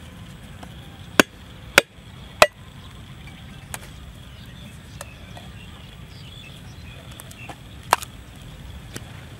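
Hard knocks against a husked coconut's shell as it is struck to crack it open: three sharp cracks about half a second apart, a few lighter taps, then one more hard knock near the end as the shell splits.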